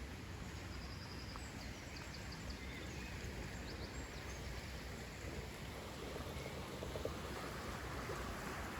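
Steady outdoor nature ambience with a soft, even rush like flowing water, and a few faint, short, high bird chirps in the first few seconds.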